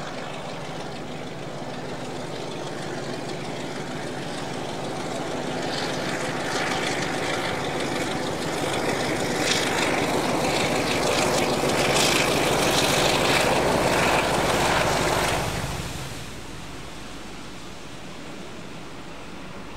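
Train passing at speed, building steadily as it approaches and loudest just before it drops away sharply about sixteen seconds in, leaving a quieter steady rush.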